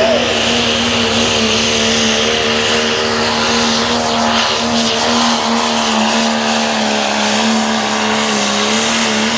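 Diesel four-wheel-drive pickup truck engine held at high revs under full load while pulling a weight-transfer sled: a loud, steady, even-pitched drone that sags a little near the end.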